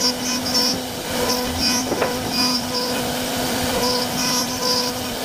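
CNC wood-carving router running steadily while carving wood: a constant machine hum with a higher cutting hiss that comes and goes.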